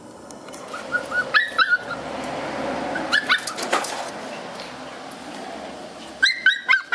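Shiba Inu puppies yipping and whining: short, high-pitched calls in bursts about a second in, around three seconds in, and again near the end.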